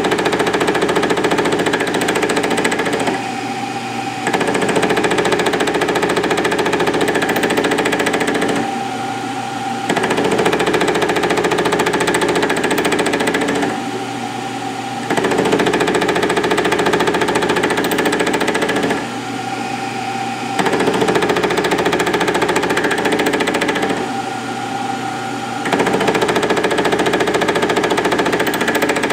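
Milling machine running with an offset boring head taking an interrupted cut on a steel drill-rod cam blank. The cutting noise swells for about four seconds, then drops back to the running machine for about a second, about every five seconds, one swell per cutting pass as the rotary table is indexed.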